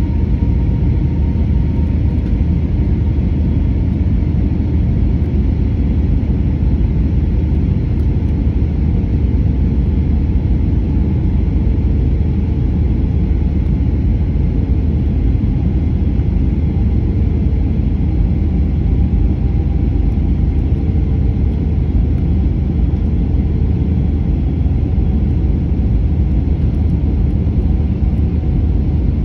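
Steady low rumble of cabin noise inside an Airbus A320-family jet airliner on its landing approach: engines and airflow heard from a window seat, with faint steady engine tones that drift slowly in pitch.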